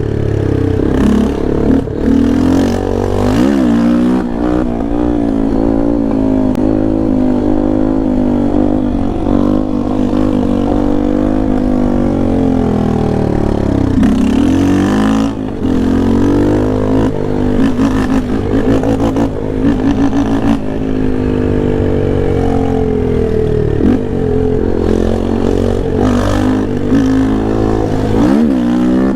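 Yamaha Lander 250's single-cylinder four-stroke engine under hard riding, revving up and dropping back again and again as the bike accelerates and slows, with a deep fall in revs about fifteen seconds in.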